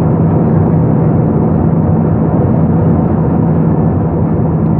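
Airbus A320-212 jet engines and airflow: a steady low drone under an even rushing noise, with no change in level.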